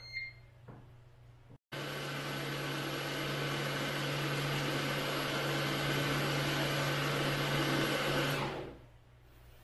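A short beep, then about a second and a half later the Philips HD7762 Grind & Brew coffee maker starts its flushing run with a loud, steady mechanical whir that lasts about seven seconds and then dies away.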